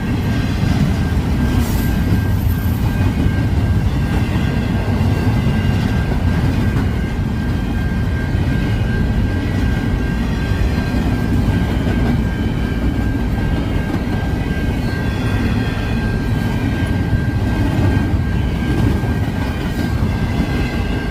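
Train rolling past, a steady loud rumble of railcars on the track with a thin, steady high-pitched tone over it.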